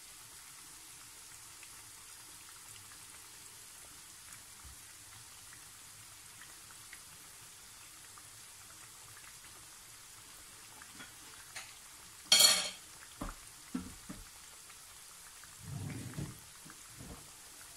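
Breaded chicken pieces deep-frying in a pan of hot oil: a steady, faint sizzle. About twelve seconds in there is a sharp clack, followed by a few lighter knocks and a low thump near the end.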